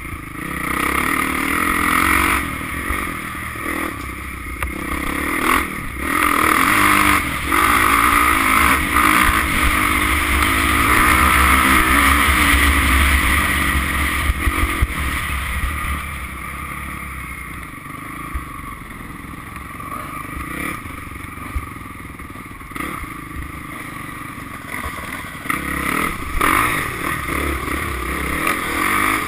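Off-road dirt bike engine running and revving as the bike rides a rough dirt track, with knocks and rattles from the bumps. It is loudest through the first half, eases off in the middle and picks up again near the end.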